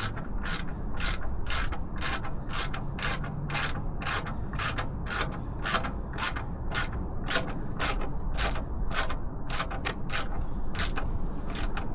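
Ratchet wrench with a 10 mm socket being worked back and forth to do up an exhaust fastening, its pawl clicking in a short burst on each return stroke, a little over twice a second.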